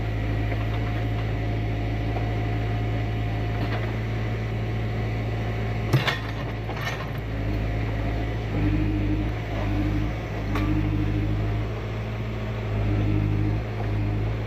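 A heavy vehicle's engine running steadily, swelling a little in level several times, with one sharp knock about six seconds in.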